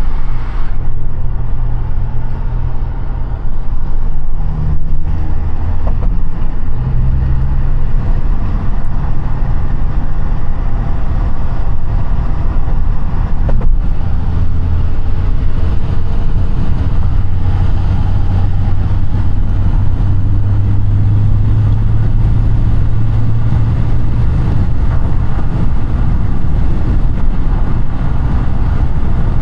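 Audi A5 8T engine and tyre/road noise while driving. The low engine note shifts pitch several times in the first seven seconds or so, then holds steady while cruising.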